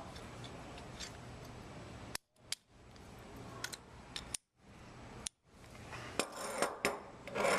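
Sharp metallic clicks and clinks, scattered and then several close together near the end, as the sampler's drive coupling and retaining pin are fitted back onto the auger, over a steady low hum.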